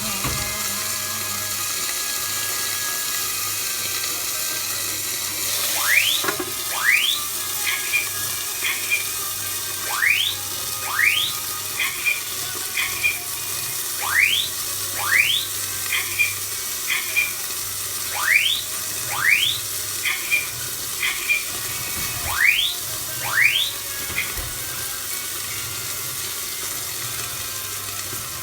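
Home fire alarm going off during cooking: a repeating pattern of two fast rising whoops about a second apart followed by a few short pulses, cycling about every four seconds. It starts about six seconds in and stops a few seconds before the end.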